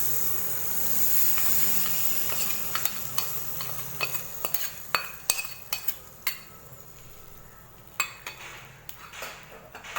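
Hot oil tempering with mustard seeds, shallots, dried chillies and curry leaves sizzling as it is poured into a curd curry, the hiss fading over the first few seconds. A metal spoon then clinks and scrapes against the pan again and again.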